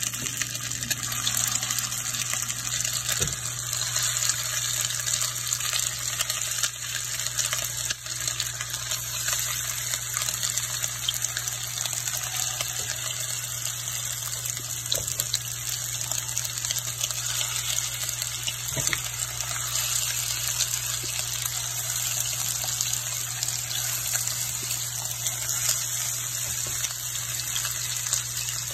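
Hot oil sizzling steadily in a nonstick frying pan as raw meatballs are set in one by one, a fine crackly hiss with a few soft knocks. A steady low hum runs underneath.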